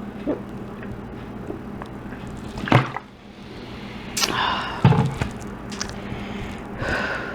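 A person drinking Diet Coke: a few separate gulps and swallows with breaths between them, the sharpest a little under three seconds in.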